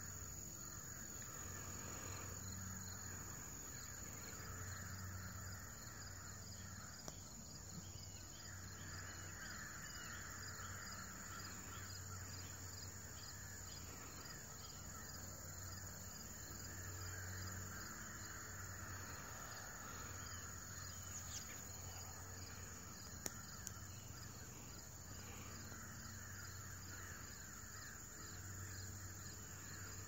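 Faint open-field ambience: insects and birds calling, with a low rumble that comes and goes.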